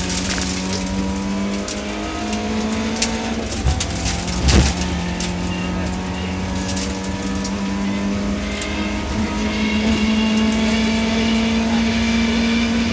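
BMW E30 318is rally car's four-cylinder engine running hard at high revs, heard from inside the cabin, its pitch climbing slowly in the second half. Scattered sharp ticks in the first few seconds and a heavy thump about four and a half seconds in.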